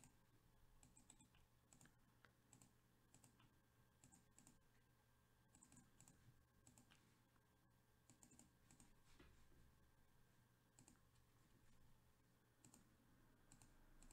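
Near silence with scattered, faint clicks from a computer keyboard and mouse, a few every second or so, irregular.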